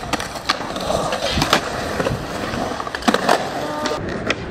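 Skateboard wheels rolling on smooth concrete, with several sharp clacks of the board striking the ground in pairs and singly.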